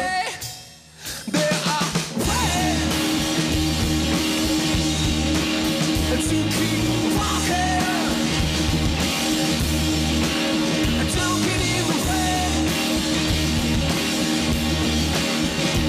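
A live rock band playing: a male lead singer over electric guitar, bass and drums with a steady beat. The band drops out for about a second near the start, then comes back in at full level.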